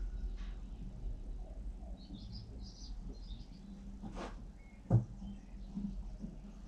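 Small birds chirping in short high bursts over a steady low hum, with two sharp knocks, the louder about five seconds in.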